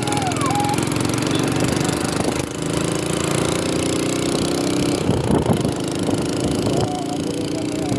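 Small motorcycle engine running steadily while riding, with road and wind noise, and a brief louder rush about five seconds in.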